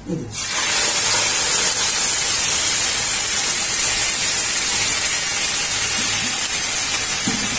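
Cold milk sizzling in a hot non-stick pan of roasted grated coconut, a loud steady hiss that starts suddenly as the milk hits the pan.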